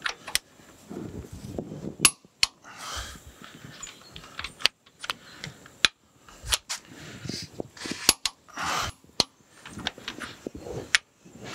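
Click-type torque wrench on the steel nuts of a steam locomotive's steam chest cover, breaking with a sharp click every second or two as each nut reaches the 80 foot-pound setting. Short bouts of ratcheting and metal handling come between the clicks.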